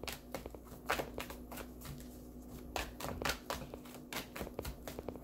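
A deck of oracle cards being shuffled by hand: a run of soft, irregular clicks as the cards slide and tap against each other.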